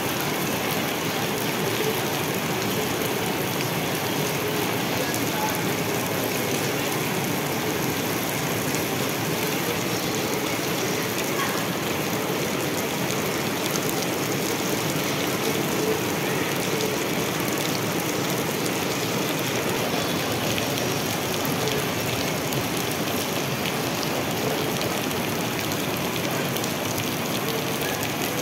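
Heavy rain falling steadily, drops splashing on wet paving and puddles.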